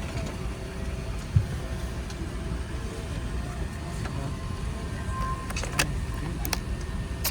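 Steady low rumble of an Airbus A380's cabin on the ground before departure, the air-conditioning and aircraft systems running, with a few sharp clicks near the end.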